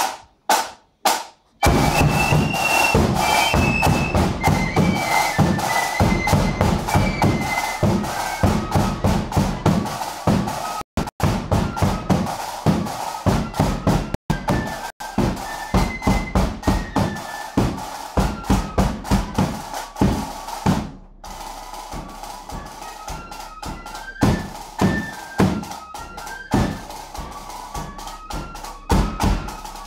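Marching flute band playing a tune: several flutes carrying the melody in unison over bass drum and rapid side-drum strokes. It opens with a few drum beats before the flutes come in, and goes briefly quieter about two-thirds of the way through before the tune carries on.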